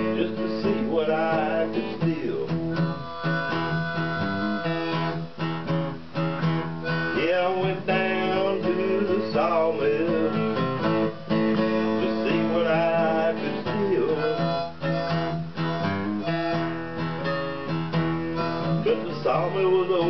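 Steel-string acoustic guitar strummed and picked in a blues song, with a man's voice singing the melody at times over it.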